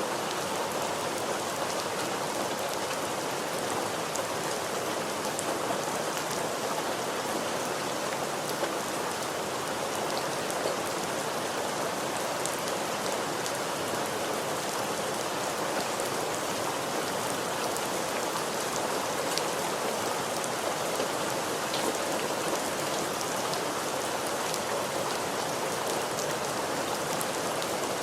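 Steady, even rain falling on a surface, with faint individual drop ticks scattered through it.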